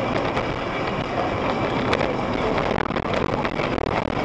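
Steady road and wind noise of a moving car as picked up by a dashboard camera, an even rushing sound with a few faint ticks.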